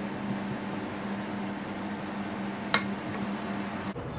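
A metal spoon clinks once against a glass mixing bowl of batter, over a steady low hum that cuts off suddenly near the end.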